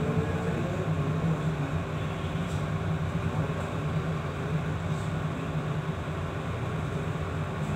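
Steady low hum of a ship's engine and machinery heard on board, over a rushing noise, with a few faint ticks.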